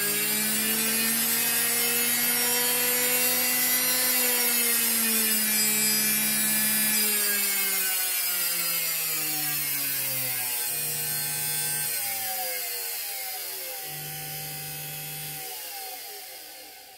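Washing-machine universal motor spinning under a TDA1085C speed-controller board, a steady whine whose pitch rises slightly over the first few seconds and then falls slowly as the speed is turned down. It winds down to a stop near the end.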